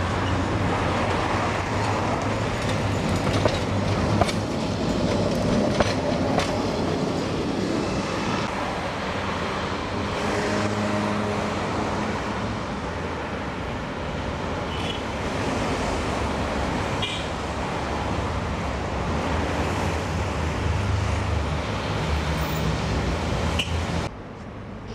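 Old street tram running on its track: a steady rumble of wheels and motors with clicks and knocks from the rails, and a short humming tone about ten seconds in.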